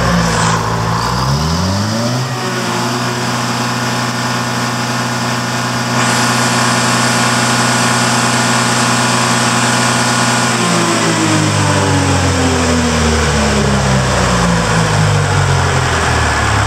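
Detroit Diesel 4-71 two-stroke inline four-cylinder diesel engine revving up from idle over about two seconds, holding at a higher speed, then winding back down to idle over the last several seconds.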